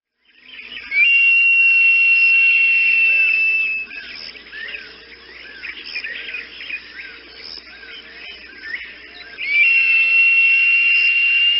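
Two long, steady high whistles of about three seconds each, each starting with a short upward slide and sagging slightly at the end, over a background of many small birds chirping.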